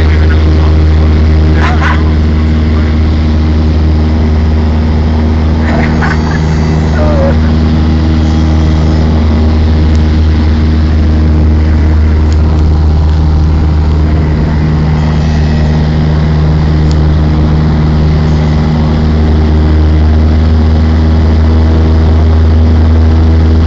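Cessna 172's piston engine and propeller droning steadily in level, continuous flight, a loud low hum with an even stack of engine tones.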